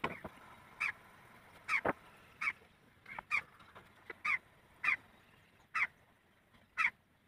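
Spatula stirring semolina into water in a non-stick pan: short, squeaky scrapes against the pan about once a second, around nine strokes.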